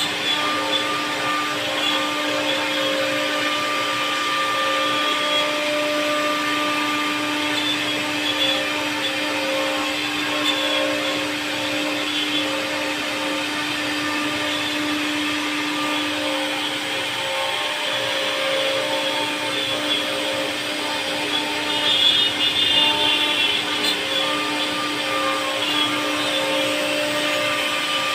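CNC wood router running steadily with a high, whining motor sound. A lower hum within it drops away a little past the middle.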